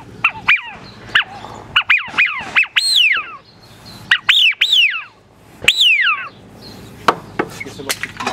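Wigeon duck call, a hand-held whistle imitating the drake Eurasian wigeon, blown as a string of whistles that each rise briefly and then fall in pitch. The first few are short and quick; the later ones are longer and drawn out.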